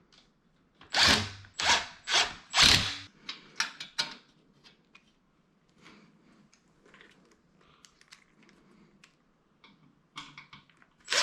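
A hex-socket furniture screw being driven into a flat-pack desk panel: four short loud rasping strokes in the first three seconds, then scattered clicks and faint scraping. A louder sustained rush of noise starts right at the end.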